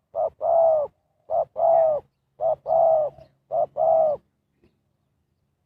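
Spotted dove cooing: four two-part calls about a second apart, each a short note followed by a longer, arching coo.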